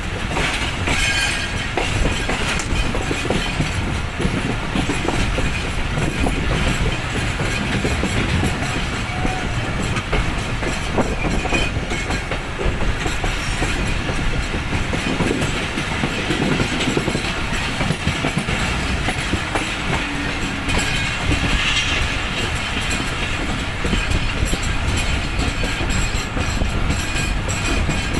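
Passenger train pulling out of a station, its coaches rolling past with the steady clatter of wheels over rail joints.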